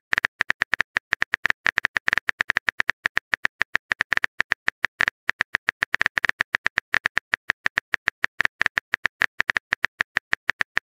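Simulated smartphone keyboard typing sound: rapid, even key clicks, about eight a second, with a short pause about five seconds in.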